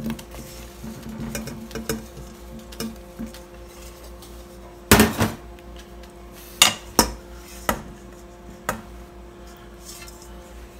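Kitchen clatter of a stainless steel mixing bowl and a wooden spoon knocking against a glass baking dish as sweet potato chunks are tipped and pushed into it: scattered sharp knocks, the loudest cluster about five seconds in, over a faint steady hum.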